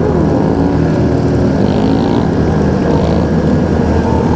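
Several motorcycle engines running steadily together at road speed on a group ride, their overlapping engine notes heavy in the low range, with wind rushing past.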